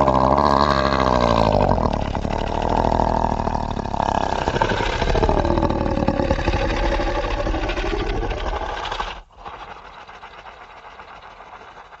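Monster growl sound effect: a loud, deep, rumbling creature growl whose pitch wavers and sags, cutting off abruptly about nine seconds in and leaving a much quieter low rumble.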